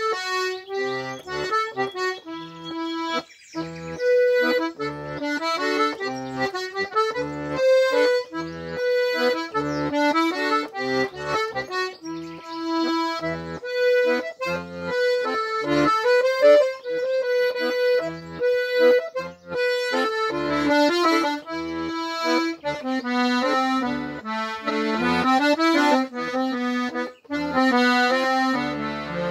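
Solo diatonic button accordion playing a waltz tune: a right-hand melody over a steady left-hand bass-and-chord accompaniment.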